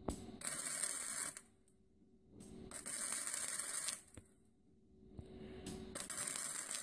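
MIG welding arc crackling in three short runs, each stopping briefly before the next, as a crack in a 1927 Model T's steel frame cross member is welded.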